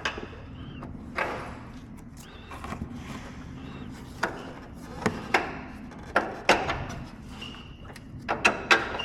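Irregular metal knocks and clunks as a BMW M2's front lower control arm is pushed down and worked into place on the car, with a few short squeaks between them. The knocks come in clusters, a quick pair about five seconds in and a run near the end.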